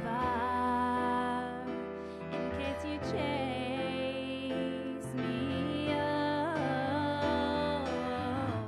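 A woman singing with piano accompaniment played on a Nord Stage 2 stage keyboard.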